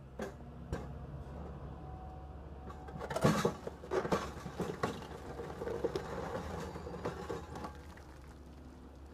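Hydraulic concrete crusher jaws on an excavator biting into a concrete block, with loud irregular cracking and crunching as the concrete breaks, heaviest a few seconds in. The excavator's engine hums steadily underneath.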